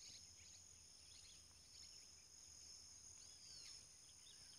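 Near silence: a faint, steady high-pitched insect chorus, with a few short bird chirps and one looping call about three and a half seconds in.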